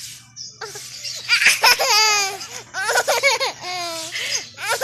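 Young child laughing in a run of high-pitched squealing bursts. Between the laughs come short scratchy swishes, the broomstick sound he is laughing at.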